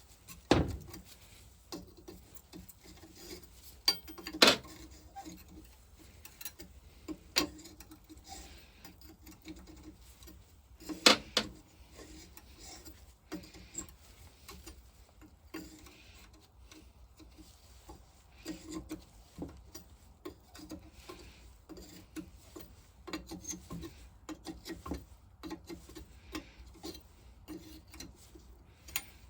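Spanner and metal vaporiser parts knocking and clinking as heated, seized nuts are worked loose, with light ticking and rubbing between. The sharpest knocks come about half a second, four and a half, seven and a half and eleven seconds in.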